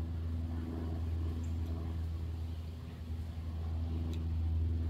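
A steady, low-pitched engine drone holding a constant pitch, with a few faint ticks over it.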